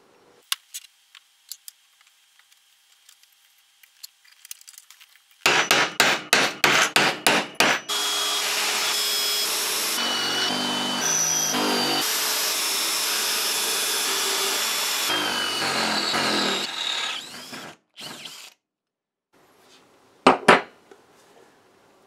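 A handheld 18 V cordless drill boring holes through a 3 mm thick metal bracket. After a few seconds of faint clicks it starts in short stuttering bursts, about four a second. It then runs continuously for about nine seconds with thin high tones coming and going, and stops a few seconds before the end, apart from one brief burst.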